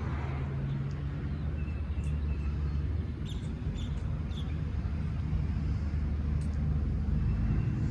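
Steady low outdoor rumble, like a running engine or traffic, with a few faint, short high chirps about three to four seconds in.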